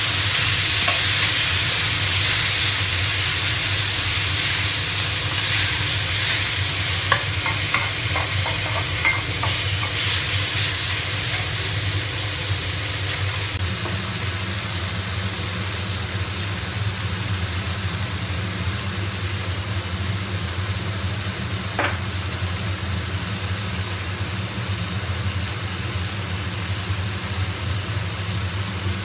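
Chopped tomatoes sizzling in hot oil in a wok, with a metal spatula scraping and clicking against the pan in the first half. About halfway the sizzle eases and a steady low hum comes in, with a single knock later on.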